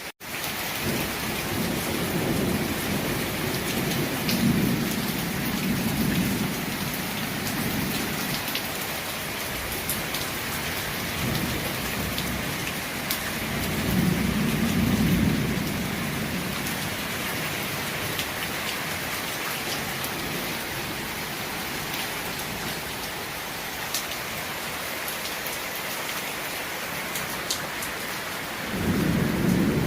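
Heavy rain falling steadily, with low rolls of thunder swelling and fading three times: a long one in the first several seconds, another about halfway through, and a third near the end.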